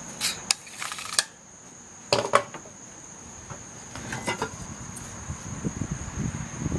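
A few sharp knocks and clatters, as of lumber and tools being handled, over a steady high insect trill. A low rustling builds in the second half.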